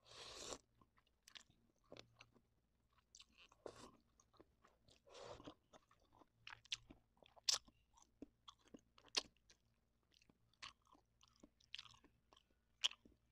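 A person eating instant noodles close to the microphone: faint wet chewing with many small mouth clicks and smacks, and a few short slurps, the first right at the start.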